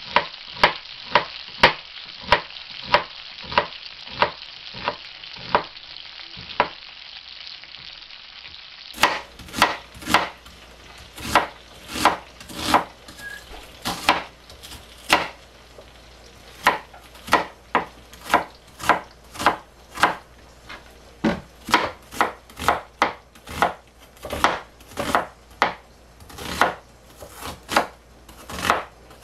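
Chef's knife slicing an onion on a cutting board: steady knife strikes about two a second, with a short pause about seven seconds in.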